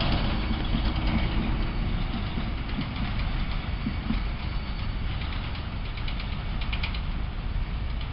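Long freight train of hopper and box cars rolling by: a steady low rumble with the clatter of steel wheels on the rails, slowly fading. There is a run of rapid clicking from about five to seven seconds in.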